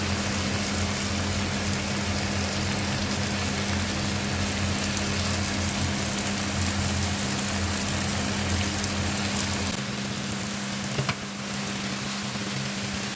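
Vegetables and whole prawns sizzling steadily in a hot nonstick frying pan. A steady low hum runs underneath, and there is a short knock near the end.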